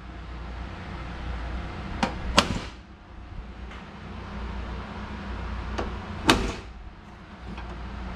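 A marker scratching on aluminium sheet as hole positions are marked through a template, with four sharp clicks in two close pairs about two and six seconds in, over a low steady hum.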